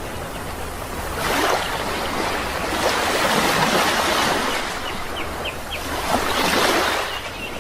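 Sea waves breaking and washing in, swelling and easing every few seconds, with a few short, faint bird chirps about five seconds in.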